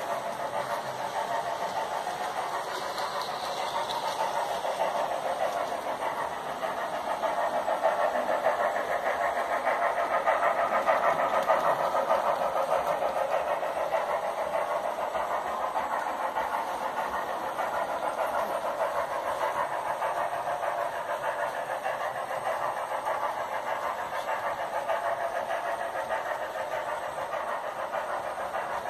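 HO scale model steam locomotives and passenger cars running on the layout track: a steady mechanical running sound that swells about eight to twelve seconds in.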